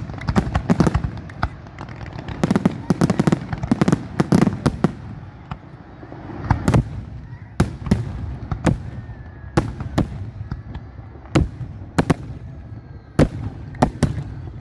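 Aerial fireworks bursting: a rapid barrage of overlapping bangs and crackle over the first few seconds, then single sharp booms roughly once a second.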